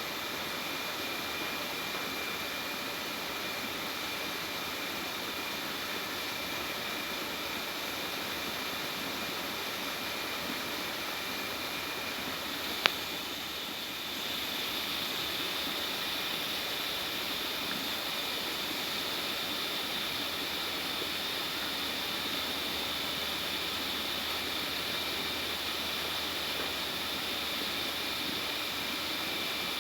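Steady background hiss with one sharp click about thirteen seconds in; the hiss grows slightly louder just after.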